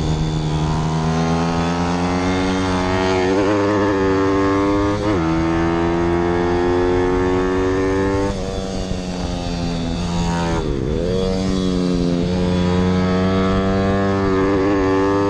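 160 cc Zongshen single-cylinder four-stroke pit bike engine at race pace, its note climbing steadily as it pulls, with a quick gear change about five seconds in. Around ten to eleven seconds in the revs drop sharply and pick up again as the throttle is shut and reopened for a corner, with a steady rush of wind over the microphone.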